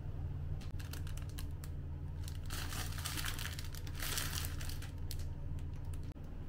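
Plastic wrapping being crinkled and handled: scattered crackles, with two denser rustles around the middle, over a steady low hum.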